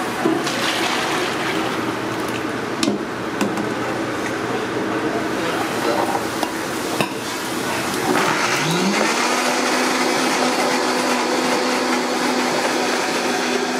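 Kitchen clatter with a few sharp knocks, then, about two-thirds of the way in, a commercial countertop blender switches on: its motor whines quickly up in pitch and runs steadily, chopping green chili peppers.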